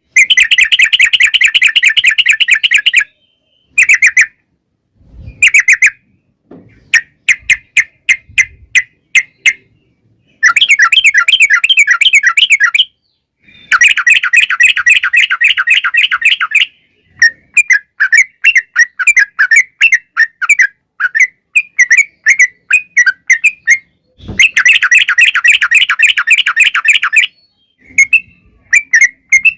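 Yellow-vented bulbul (trucukan) singing its long, rapid warbling song. Fast chattering phrases of many notes run for up to three seconds, with short pauses between them.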